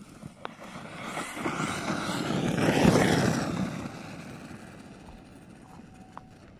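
Arrma Kraton 6S RC truck's brushless motor and tyres on dirt as it drives past at speed, swelling to its loudest about three seconds in and then fading as it moves away.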